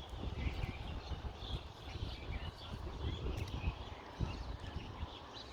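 Wind gusting on a phone microphone as a steady low rumble, with small birds chirping repeatedly over it.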